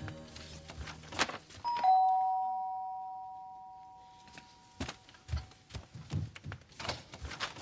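Two-note ding-dong doorbell chime about two seconds in, a higher note then a lower one, ringing on and fading over about three seconds. Footsteps and small knocks come before and after it.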